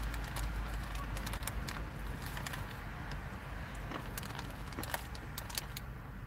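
Low engine and road rumble heard inside a car's cabin, with other cars passing in front and a few light clicks.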